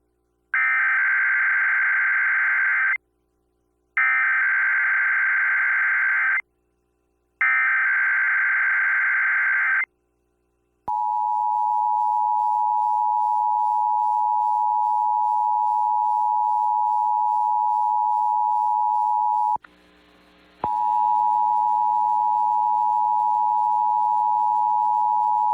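Emergency Alert System test signal: three short screeching digital SAME header bursts, then the steady two-tone EAS attention signal. The attention tone drops out for about a second, then resumes.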